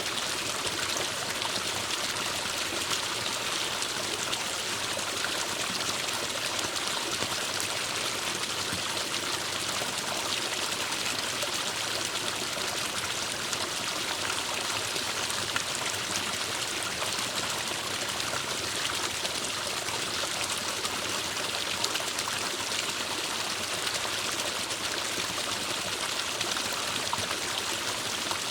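Small forest stream running over rocks: a steady rush and trickle of water.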